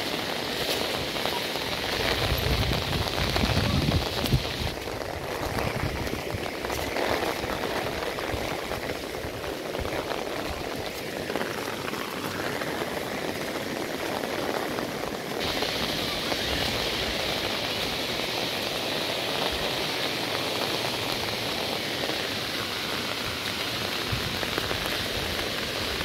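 Steady hiss of falling water, from rain and the rocky cascades of Lodha Falls below. A few low bumps come two to four seconds in, and the higher part of the hiss drops away from about five seconds in for some ten seconds.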